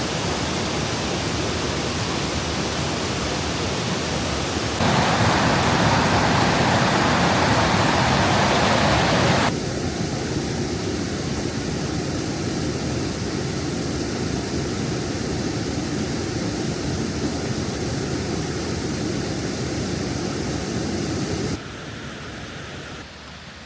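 Waterfall rushing: a steady roar of falling water that jumps suddenly louder about five seconds in, drops back about four seconds later and falls quieter near the end, as separate takes follow one another.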